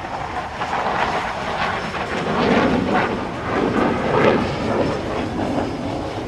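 Fighter jet flying past low, its engine roar swelling to a peak about four seconds in and then easing, with a rough crackle.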